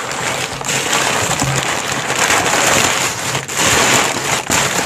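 Crumpled kraft packing paper rustling and crinkling without a break as hands dig through it and pull it out of a cardboard box, louder in the second half.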